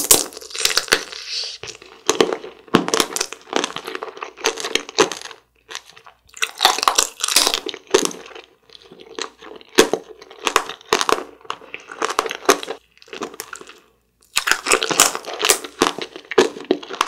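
Close-up crunching and chewing of a hard candy: repeated crisp cracks and crunches in quick runs, with short pauses between bites.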